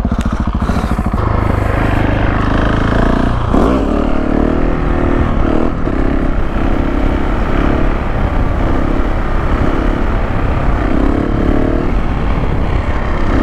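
KTM 690 SMC R's single-cylinder engine running hard under throttle while the supermoto is ridden in a wheelie. The engine note shifts about three and a half seconds in.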